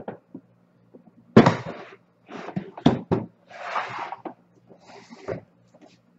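Hard plastic rolling tool box being handled: a loud thump about a second and a half in, then scraping and sharp clicks of plastic as the box is moved and its lid pressed down.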